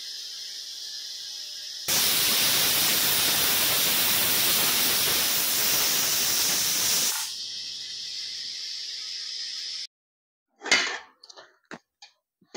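Pressure cooker venting steam: a fainter steady hiss swells about two seconds in into a loud hiss that lasts about five seconds, the sign that the cooker has come up to pressure, then drops back to the softer hiss. The sound cuts off near the end, followed by a few short clicks and a knock.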